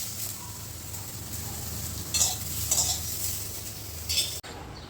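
Pointed gourd (potol) slices sizzling as they fry in oil in a pan, with a spatula scraping and stirring three times. The sizzle cuts off abruptly near the end.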